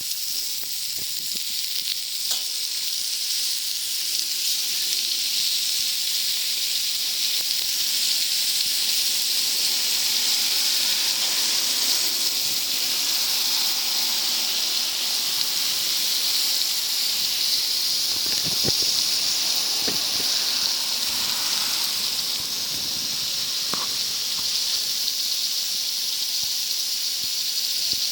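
Food sizzling on a hot wood-fired plancha: a steady high hiss, with a few faint pops.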